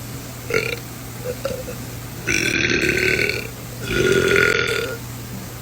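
A young woman belching: two long, drawn-out burps of about a second each, the first starting a little past two seconds in and the second, slightly louder, about four seconds in, after a brief shorter sound near the start.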